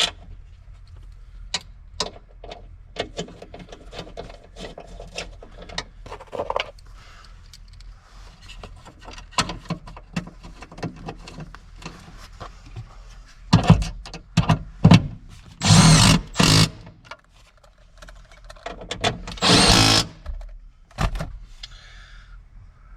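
A cordless power driver with a socket runs the van seat's mounting bolts down in three short runs of about a second each, after a stretch of scattered clicks and clatter of the socket and tool being handled.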